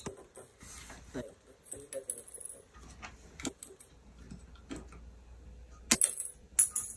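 Small plastic LEGO pieces clicking and rattling as they are handled, with light clicks scattered throughout and a louder burst of sharp clicks and rattle about six seconds in and again near the end.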